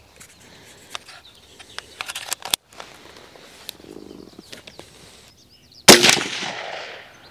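A single shot from a CZ 512 semi-automatic rifle in .22 WMR about six seconds in, sharp and loud, with a ringing tail that dies away over the next second and more. Before it come a few small metallic clicks and knocks of the rifle being handled and readied.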